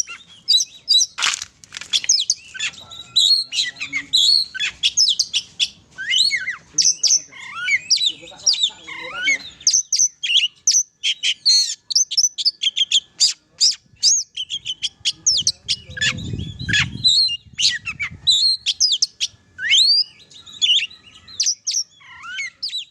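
Oriental magpie-robin (kacer) singing a long, rapid, varied run of whistles and chirps. There is a brief low rumble about two-thirds of the way through.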